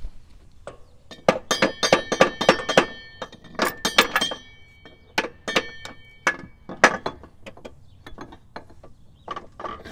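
Hand wrench clicking and clinking on the steel bolt and hub of a taper lock bushing in a mower deck pulley: two quick runs of metallic clicks with a ringing note, then a few scattered clicks.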